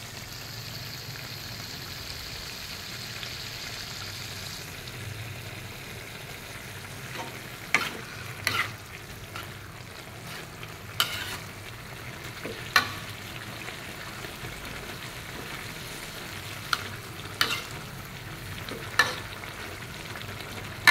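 Mixed vegetables and bean sprouts sizzling in a wok in a shallow broth, with a higher hiss for the first five seconds or so. From about eight seconds in, a spatula knocks and scrapes against the wok about seven times as the vegetables are stirred.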